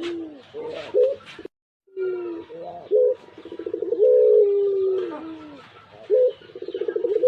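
Pugeru pelung dove cooing repeatedly in its long call: each coo is a quick stuttering run of pulses that flows into a long, falling held note. The audio drops out completely for a moment about a second and a half in.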